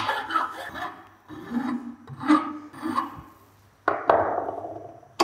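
Flat hand file being stroked across the cut end of an aluminium thread-repair bushing on a Linkert carburetor's float-bowl stem, several separate strokes smoothing the cut edge. A sharper scrape just before the end then fades away.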